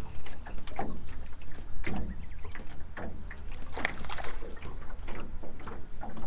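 Small waves lapping and slapping against the hull of a small jon boat in irregular strokes, about two a second, over a low rumble of wind. There is a louder splash about four seconds in.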